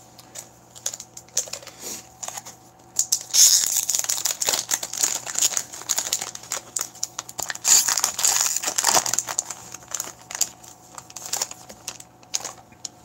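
Crinkling and tearing of a hockey card pack's foil wrapper as it is ripped open and peeled off the cards. Sporadic crackles at first, then a dense stretch from about three seconds in to about ten seconds, thinning out near the end.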